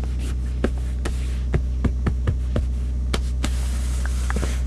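A steady low hum under scattered short clicks and knocks of hands rummaging through things, then a plastic bag of sunflower seeds rustling for about a second near the end.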